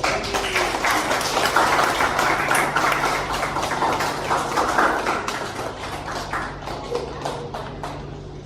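A hall full of schoolchildren clapping. The applause is dense for the first five seconds, then thins out to scattered claps near the end.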